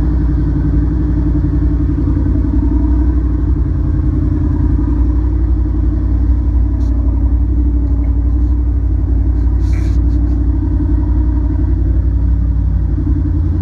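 Jeep CJ's engine running steadily at low trail speed, heard from inside the open cab. A short knock about ten seconds in.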